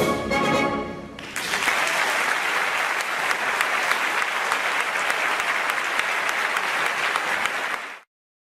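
Orchestral brass music ends in the first second, then an audience applauds with dense clapping that cuts off abruptly near the end.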